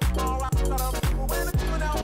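Background music with a steady beat of about two beats a second over a heavy bass line.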